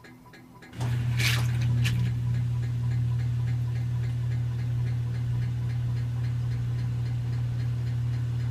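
Samsung washing machine in its rinse cycle making a steady light clicking or tinking, about three to four clicks a second: a new noise since the machine was repaired. About a second in, a steady low machine hum starts with a brief swish of water, and the ticking carries on faintly under it.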